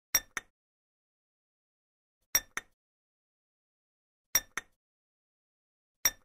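A sharp double click, repeated four times about two seconds apart with dead silence between. It is an added cutting sound effect for a toy plastic knife slicing through play dough.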